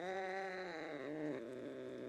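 An angry cat's drawn-out, low warning yowl, its pitch wavering and dipping about a second in.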